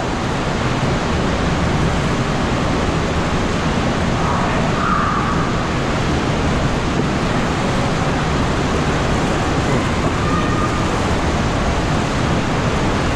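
Steady rush of a shallow creek flowing over rocks through a narrow slot canyon, a constant even hiss of moving water.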